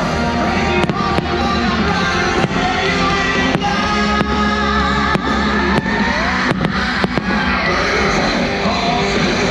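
Show music with fireworks going off over it: a string of sharp bangs, roughly one every half-second to second, some in quick pairs.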